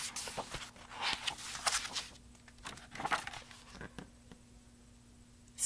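Paper page of a picture book being turned by hand: a run of rustling and crinkling with a few light clicks for about three seconds, then it stops.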